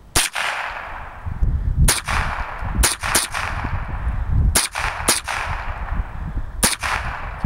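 .22 semi-automatic rifle firing about eight shots at an uneven pace, some in quick pairs. Each sharp crack is followed by a short ringing echo.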